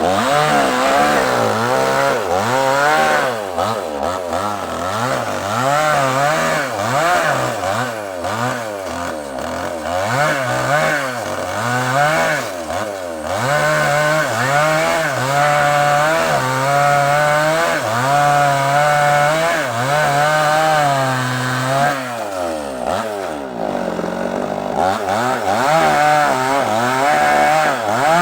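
Two-stroke chainsaw cutting through a large sengon log, its engine pitch rising and falling as the chain bites and eases. The pitch holds steadier for several seconds in the middle, dips briefly about three-quarters of the way through, then revs back up.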